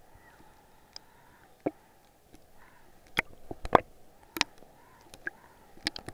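Muffled underwater sound picked up by an action camera in its waterproof housing: a steady dull hiss with about ten sharp clicks and knocks scattered through it, the loudest in the middle.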